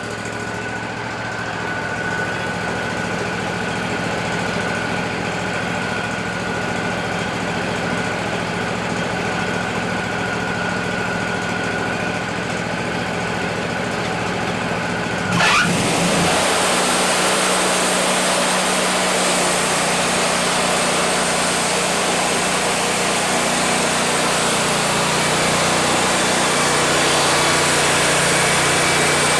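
Wood-Mizer LT40 band sawmill running steadily with a thin high whine. About halfway through the engine revs up and the band blade goes to work, turning the sound into a loud, steady rushing noise of the blade cutting through the cedar log.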